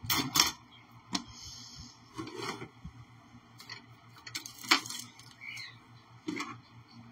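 Handling noise from modelling tools and a clay piece at a work table: a few sharp clicks and light knocks, the loudest just after the start and about two-thirds of the way through, with soft scraping between.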